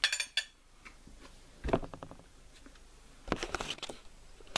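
A hard, tough pastry crust being bitten and handled: a quick run of crisp crackling clicks at the start, a thump a little under two seconds in, and a cluster of knocks and rustles a little after three seconds.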